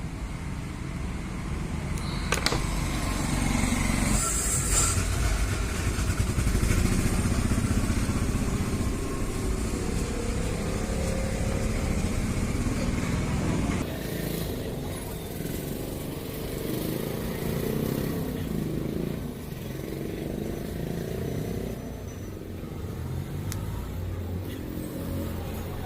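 Stihl MS 180 two-stroke chainsaw engine running after its carburetor has been cleaned, with its pitch and character changing about halfway through.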